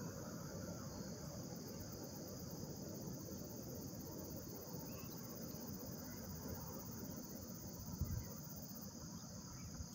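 A steady chorus of insects, most likely crickets, high and even, over a low rumble. A single brief low thump about eight seconds in.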